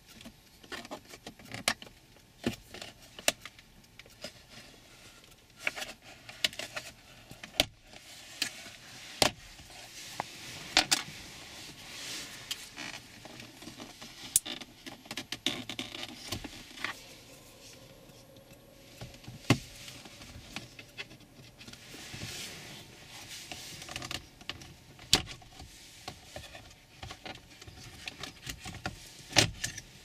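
Plastic center console trim of a Toyota RAV4 being pried and pulled loose with a plastic trim removal tool: scattered sharp clicks and snaps as clips let go, with scraping and rubbing of plastic in between.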